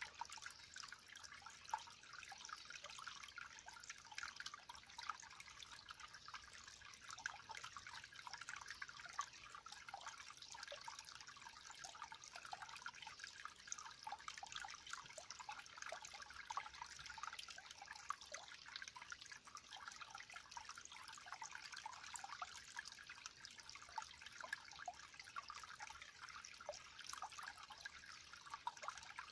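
Faint, steady water trickling, made up of many small drips and splashes.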